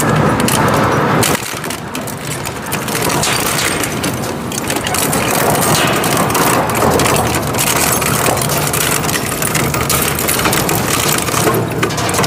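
A twin-shaft metal shredder's hooked cutters grinding and cracking a small cast-metal engine part: dense crunching and sharp metal cracks over the steady low drone of the machine's drive.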